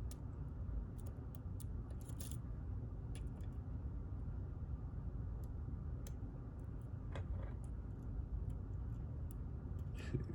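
Scattered small metallic clicks and taps from handling a Clavis 10-pin lock and lock-picking tools, with a brief scrape about seven seconds in, over a steady low hum.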